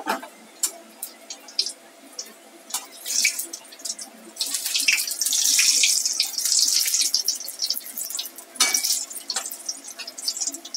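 Batter-coated potato fritters deep-frying in hot oil in a steel kadhai: a steady sizzle full of crackles, denser and louder for a few seconds in the middle. A slotted spatula clicks against the pan now and then, loudest a little before the end.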